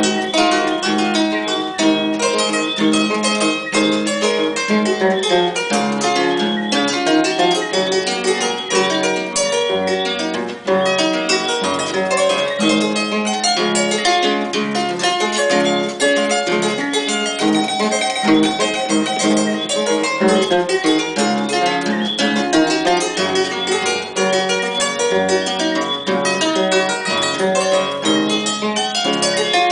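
Large wooden harp played by hand: a continuous stream of quick plucked notes over a lower bass line, with a brief drop about ten seconds in.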